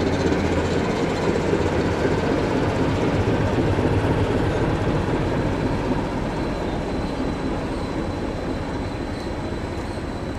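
Class 73 electro-diesel locomotive passing slowly at close range, running on its diesel engine: a steady engine hum with wheel and body noise, easing slightly after about six seconds.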